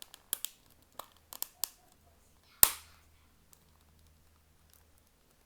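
Plastic case clips of a TI-84 Plus CE calculator snapping into place as the two halves of the shell are pressed together: a run of sharp clicks over the first two seconds, then one louder snap about halfway.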